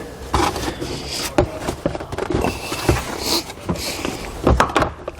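Plastic rear threshold trim panel being worked loose and handled: scraping with a series of sharp clicks and knocks.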